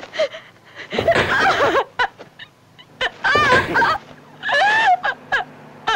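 Several sharp open-hand slaps to the face, with dubbed-in slap sound effects, and a woman crying out and whimpering between the blows.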